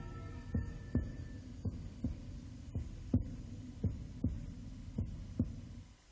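Title-theme music winding down to a steady pulse of deep thuds, close to three a second. The held tones of the theme fade out in the first second and a half. The pulse stops about six seconds in.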